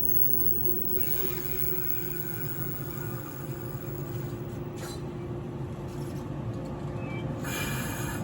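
JR Kyushu 415 series electric train running slowly into a station, wheels rumbling on the rails with a steady high tone. A brief hiss comes about seven and a half seconds in.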